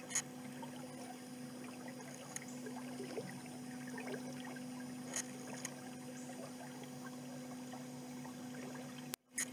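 Small gasoline outboard motor pushing a canoe, running at a steady speed with an even hum, with a few light clicks over it; the sound cuts out for a moment near the end.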